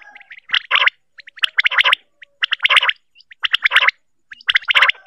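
Quail calling: about five short, quick rattling call bursts, roughly one a second, with faint chirps between. It is a recorded female quail call used as a lure for quail hunting.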